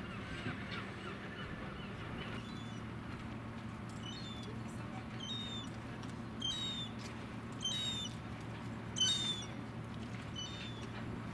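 A bird giving a series of short, slightly falling high calls, one every second or so, loudest from about six to nine seconds in, over the steady low hum of an idling engine.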